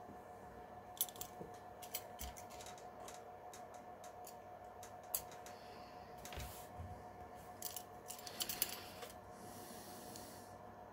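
Scattered small clicks and taps of hands and a small tool working on a laptop's plastic case, with a quick cluster of clicks past the middle and a brief soft rustle near the end, over a faint steady hum.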